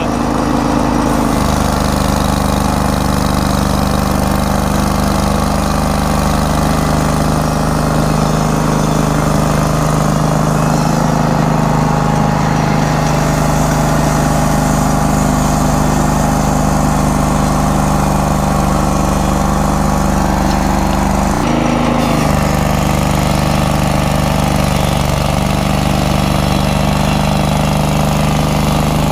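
Engine of a small Hudson portable band sawmill running steadily, its low hum shifting about a second in and dipping briefly near three-quarters of the way through.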